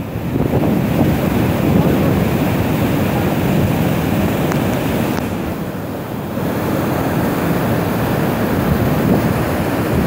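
Målselvfossen waterfall and its rapids: a large river's whitewater rushing steadily, a deep, continuous roar of falling and churning water.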